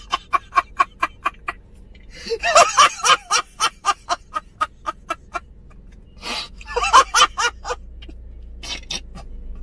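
A man laughing hard: a long run of quick, breathy cackles, about five a second, breaking into two louder, higher bursts of laughter about two and a half and six and a half seconds in.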